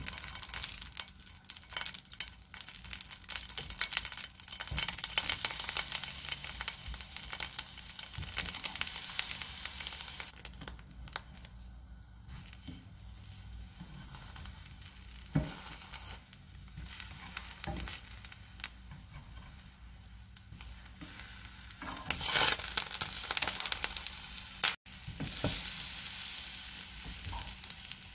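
Eggplant slices sizzling and crackling in hot oil in a nonstick frying pan. The sizzle swells as fresh slices go in, with a couple of sharp clicks around the middle.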